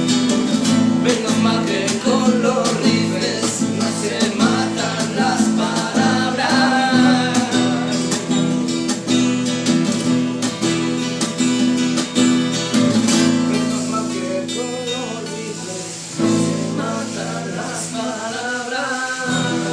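Music: a strummed acoustic guitar with a voice singing a wavering melody over it.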